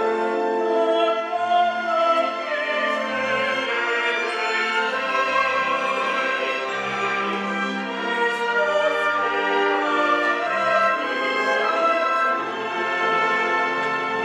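Male and female operatic voices singing a Viennese waltz song, accompanied by a full symphony orchestra with strings and brass.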